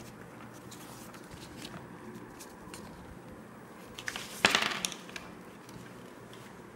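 Handling noises: a few light clicks and one brief, loud rustling scrape about four and a half seconds in, over a steady low hum.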